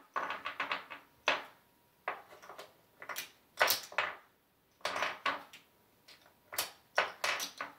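Casino chips clicking together as a stack is handled in the craps table's chip rail, in irregular clusters of sharp clicks, some in quick runs.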